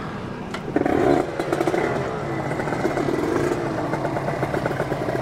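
Motorcycle pulling away under full throttle about a second in, its engine revving hard with the pitch sweeping as it climbs, then running on loudly at speed.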